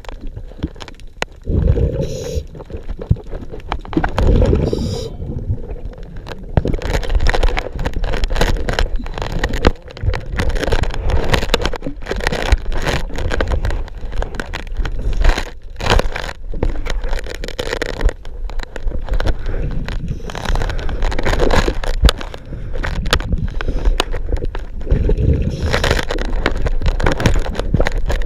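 Scuba diver's breathing heard underwater: exhaled bubbles gurgling in bursts, with scraping and crackling handling noise against the hull.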